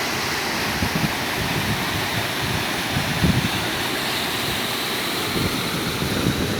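Waterfall with a steady rush of falling water, and irregular low buffeting of wind on the microphone.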